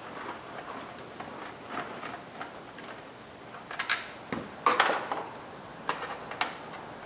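Screwdriver backing out the small screws of a power window switch, with plastic clicks and knocks from the switch and door trim panel being handled. The clicks come sharper and louder from about four seconds in.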